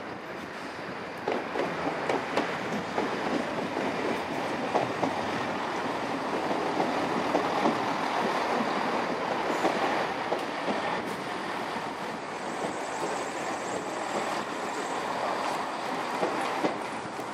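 A Class 165 Turbo diesel multiple unit passing close by on curved track, its wheels clicking over rail joints. A faint high wheel squeal comes in about three-quarters of the way through.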